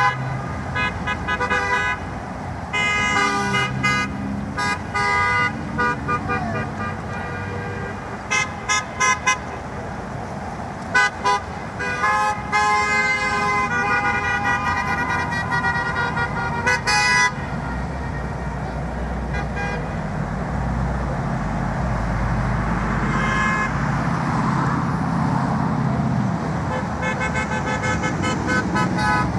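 Many car horns honking over and over, short toots and longer blasts overlapping, over the steady noise of road traffic. A gap in the honking about two-thirds through is filled by a low engine rumble, and the honking picks up again near the end.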